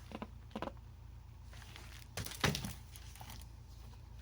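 Pages of a picture book being handled and turned: a few soft paper rustles, the loudest about two and a half seconds in, over a faint steady low hum.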